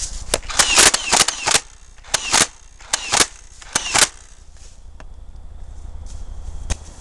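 Nerf Stampede blaster firing, sharp snapping shots in quick pairs and short bursts for about four seconds, then two single shots later on.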